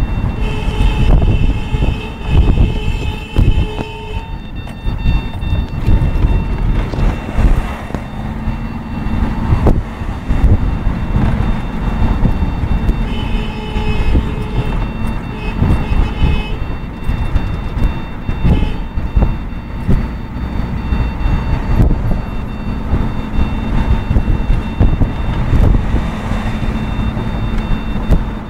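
Vehicle running on the road, heard from inside the cab: a heavy, uneven rumble of engine and road noise with wind buffeting. Twice, a few seconds at a time, a steady high-pitched tone sounds over it.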